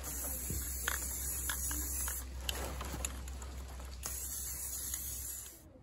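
Air-fed paint spray gun hissing steadily as it mists paint through palm fronds, with a steady low hum underneath. Both cut off just before the end.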